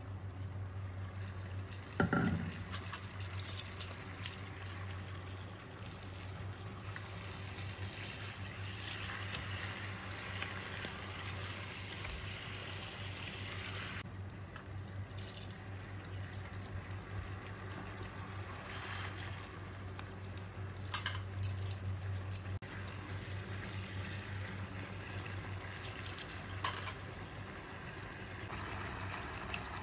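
Soy-and-sugar sauce bubbling and sizzling around pork belly pieces in a nonstick pan as it reduces to a glaze, with sharp spitting crackles now and then. A steady low hum runs underneath.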